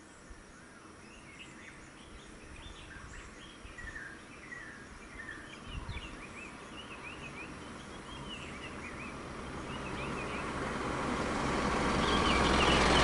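Small birds chirping over quiet outdoor background, while a motor vehicle's engine noise rises steadily through the second half and is loudest at the end.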